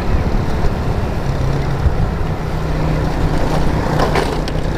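Motorcycle on the move: heavy wind buffeting on the microphone over a steady engine hum.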